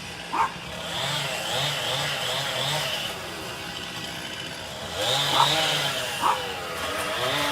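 Chainsaw running, its engine speeding up and easing off in spells as it cuts wood. A dog barks sharply three times over it, once near the start and twice past the middle.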